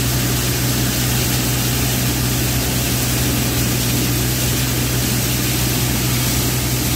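A multi-crop thresher driven by a 35 BHP diesel tractor running steadily under load. It makes a loud, even drone with a strong low hum and a constant rushing noise over it.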